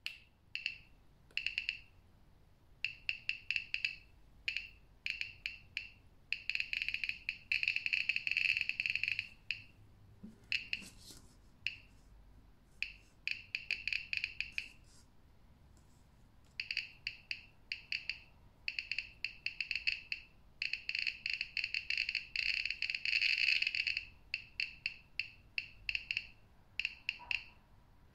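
miniRKP radiation meter sounding a short, high-pitched beep for each count. The beeps come irregularly, sometimes a few a second and twice crowding into an almost unbroken run of beeps, as the detector picks up radiation from the radium luminous paint of a watch dial.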